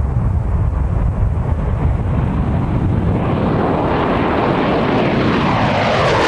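Jet engines of a B-2 Spirit stealth bomber flying low overhead: a loud low rumble, joined after about three seconds by a rising hiss that grows louder and sweeps down in pitch as the bomber passes right over.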